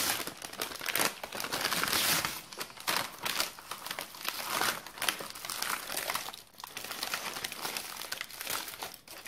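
A paper takeaway bag rustling, then aluminium foil crinkling and crackling as it is handled and peeled open by hand.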